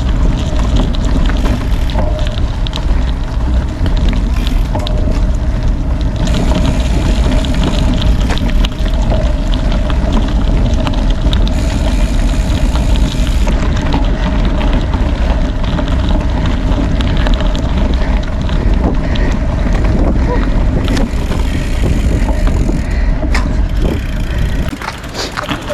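Rushing, rumbling wind noise on the microphone of a bicycle being ridden at speed, mixed with tyre noise from the gravel bike. It drops off about a second before the end.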